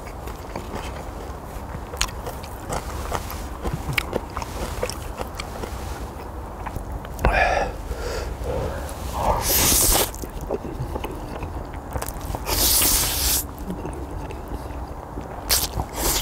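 Close-up eating of Chapagetti mixed with spicy ramen: chewing with small clicks, and three or four loud slurps of noodles in the second half.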